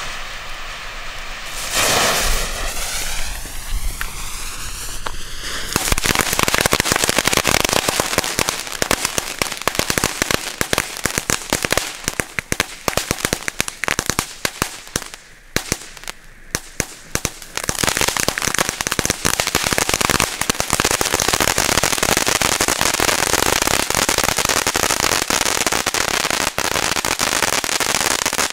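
Lesli 'Cone of Crackling' firework fountain: a few seconds of hissing as the fuse burns, then about six seconds in the fountain starts with dense crackling. After a brief lull near the middle it builds into a steady rushing spray of sparks thick with crackles.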